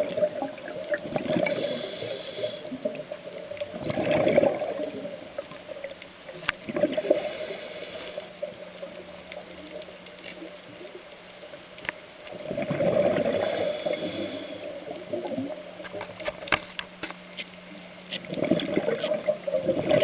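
A scuba diver's regulator breathing underwater: a hissing inhalation about every six seconds, alternating with gurgling bursts of exhaled bubbles.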